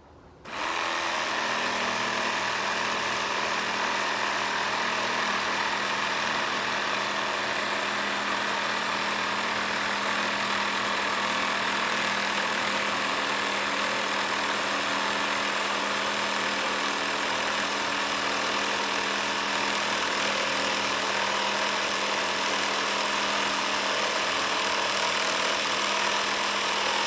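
Makita 12-volt cordless jigsaw running at speed setting 5 in straight (non-orbital) mode, its blade sawing steadily through a half-inch plywood or MDF board. The motor's whine and the blade's rasp start about half a second in and hold steady without bogging down.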